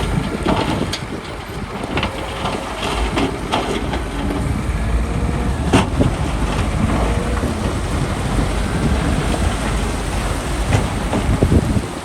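Heavy earthmoving machinery running with a low rumble while stone rock knocks and clatters, with a sharp knock about six seconds in and several more near the end.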